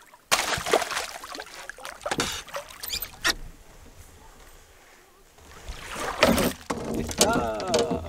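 Water splashing and sloshing around a canoe with a few sharp knocks, in two spells: one lasting about three seconds, the other starting about six seconds in. A voice is heard briefly near the end.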